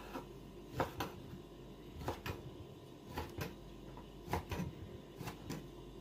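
A kitchen knife slicing hunting sausages into rounds on a wooden cutting board: about eight light knocks of the blade meeting the board, unevenly spaced, some in quick pairs.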